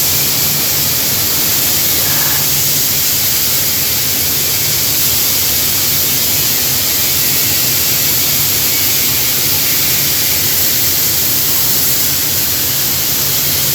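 Steady loud hiss of a CNC cutting machine's torch jet, even and unbroken, with a low hum underneath.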